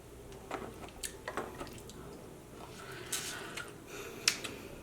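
Faint close-up eating sounds: someone chewing food, with a few scattered soft wet clicks and smacks.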